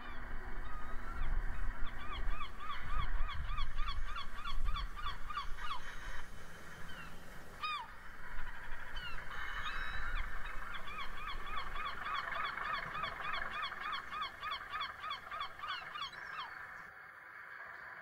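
Gulls calling in long rapid runs of rising-and-falling notes, about four a second, with a single longer call about eight seconds in. A low diesel engine rumble runs beneath, strongest in the first half.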